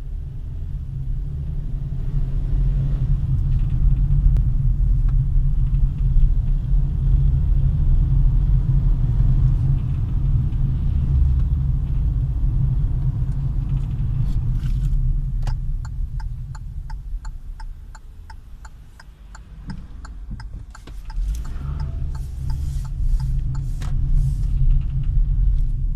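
2017 Hyundai Solaris with a 1.6 automatic, driving with a steady low rumble that dips and then builds again. Twice there is a quick run of regular knocking clicks, the crackle that appears when the car accelerates or brakes, from an unknown fault in a nearly new car.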